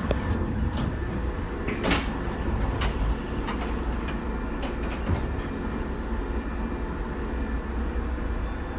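415-series electric train running: a steady low rumble with scattered sharp clicks and knocks, the loudest about two seconds in.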